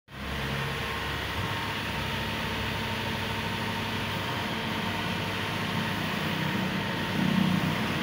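Combine harvester's diesel engine running steadily, swelling briefly in loudness near the end.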